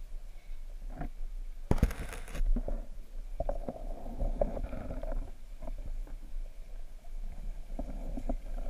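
Muffled underwater noise picked up by a camera in a waterproof housing: a low rumble with scattered knocks and clicks, and a short burst of crackling about two seconds in.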